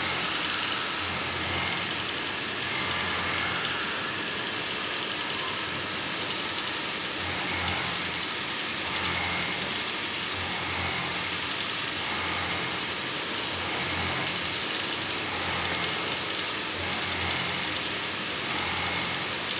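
Steady machine-shop din of CNC machines and shop equipment running: a constant hiss with a low hum that swells and fades.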